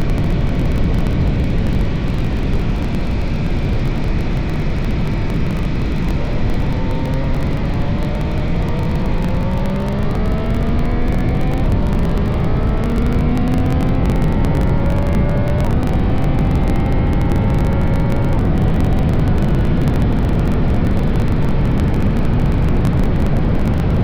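MV Agusta F3's inline three-cylinder engine running through its original exhaust, over a loud, steady low rush. About a quarter of the way in, its pitch climbs in four successive rising sweeps, then levels off near the end.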